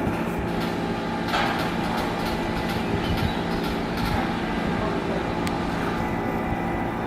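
Steady low machinery drone holding several steady tones, with a few scattered metallic knocks and clicks.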